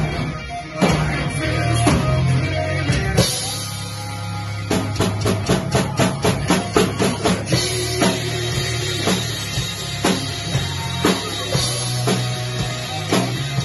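Rock music with a drum kit over a heavy guitar and bass backing. About five seconds in, the drums play a run of quick, even hits lasting a couple of seconds, then settle back into a steady beat.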